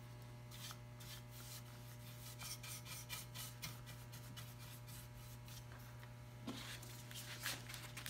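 Bristle brush spreading varnish on a wooden half-hull model: soft, irregular rubbing brush strokes, over a low steady hum.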